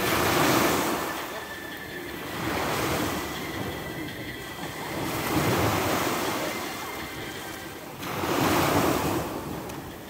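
Sea waves breaking on the shore, the surf swelling and fading four times, about every two and a half to three seconds.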